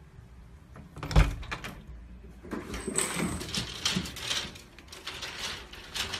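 Wooden baby gate with wire mesh knocking and rattling as a kitten climbs over it: one sharp thump about a second in, then a run of irregular clicks and rattles.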